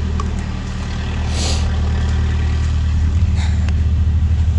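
A steady low engine rumble that takes on a fast pulsing beat about three seconds in, with a brief hiss about a second and a half in.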